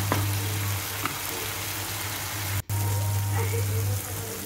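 Onion-tomato masala paste sizzling in oil in a nonstick kadhai, with a wooden spatula stirring and scraping a few times near the start. The steady sizzle marks the masala frying down until the oil separates at the edges.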